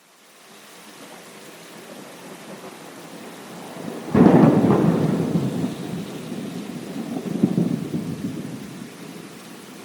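Thunderstorm: steady rain fades in, then a sudden loud thunderclap about four seconds in rolls into rumbling thunder that swells again and fades back under the rain.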